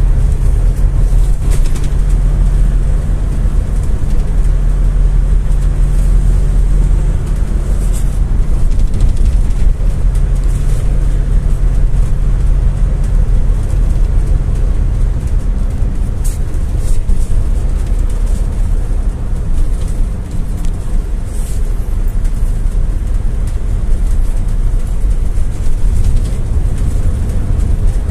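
Interior sound of a GAZ-A68R52 City minibus driving: the steady rumble of engine and road, with the engine note changing about seven seconds in. Brief light rattles are heard now and then.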